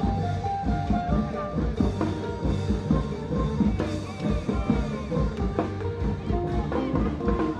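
Music with a steady drum-kit beat and held melodic notes.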